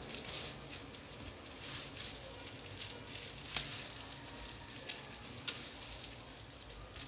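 Plastic pry tool scraping along the edge of a Samsung Galaxy Tab A 10.1 as the tablet is pried open, with short scratchy scrapes and a few sharp clicks.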